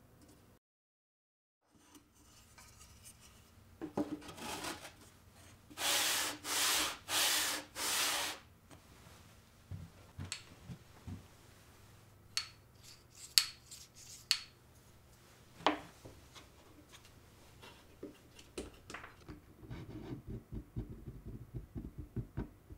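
Wood rubbing and scraping against wood as trimmer-table jig parts are handled: four loud strokes a few seconds in, then scattered light clicks and a knock, and a run of quick light ticks near the end. A second-long stretch of dead silence comes just after the start.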